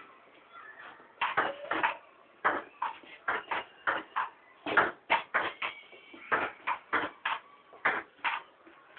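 Table tennis rally: the ball clicks against the paddles and the table in quick succession, about two to three hits a second, starting about a second in.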